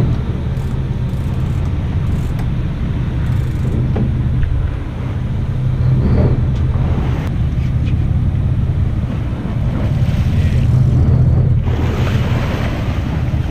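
Sportfishing boat's engines running with a steady low drone, under rushing wind and water noise that swells near the end.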